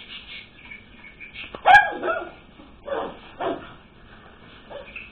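Pug puppy barking: a sharp, loudest bark about a second and a half in, then three more short barks over the next two seconds and a fainter one near the end.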